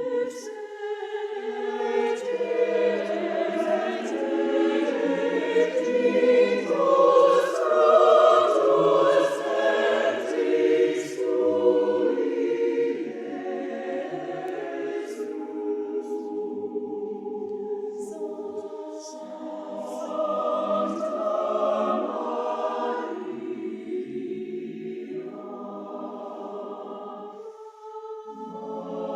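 A church choir singing a Christmas piece in several parts. The voices swell to a loud passage a few seconds in, fall back softer, and build again later.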